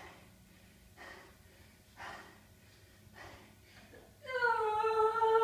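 A person breathing hard, one breath about every second, then about four seconds in a much louder, drawn-out high vocal cry held at one pitch: an effort sound from someone working out.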